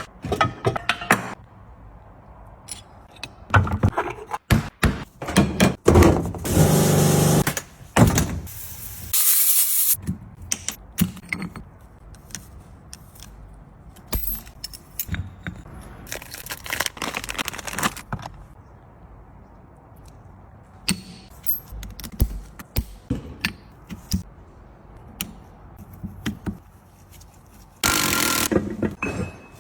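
Workshop work on a car gearbox: metal tools and parts clinking, knocking and scraping, with a few longer rushing noises in between.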